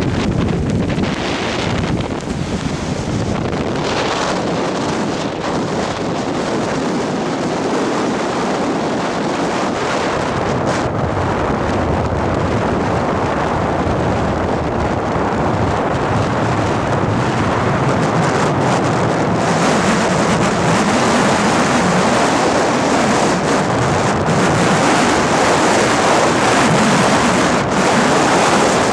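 Strong wind blowing across the microphone in a mild snowstorm, a steady rushing buffet that grows brighter and a little louder about two-thirds of the way through.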